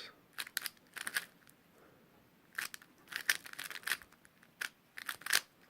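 YuXin Little Magic 3x3 speed cube being turned by hand: quick bursts of clicking plastic layer turns with short pauses between them.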